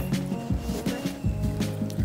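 Background music with a steady beat and a low melodic line.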